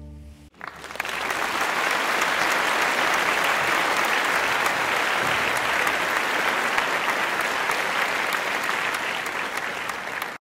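The last flute-and-strings chord dies away, and about half a second in the audience breaks into steady applause that carries on without letting up.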